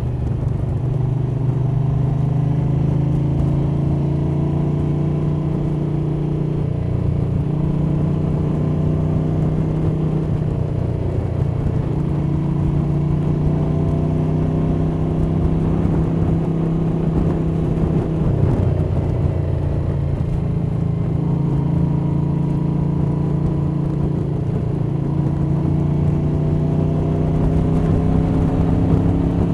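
1982 Moto Guzzi 850 Le Mans III's V-twin running under way through Lafranconi Riservato Competizioni exhausts and K&N cone filters, with wind noise and valvetrain sound, heard through a cotton-wrapped microphone in the rider's jacket pocket. The engine note changes about a quarter of the way in and again just past halfway, the revs dipping and climbing back.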